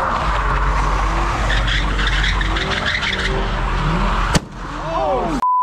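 A car drifting: tires screeching over engine noise. The sound cuts off abruptly about four seconds in, and a steady high beep starts right at the end.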